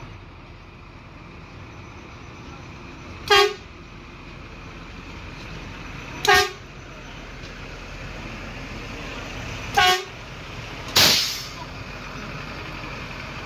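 Horn of a Plasser & Theurer OBW-10s track maintenance vehicle giving three short toots on one pitch, about three seconds apart, over a steady engine rumble. About eleven seconds in comes a brief hissing burst.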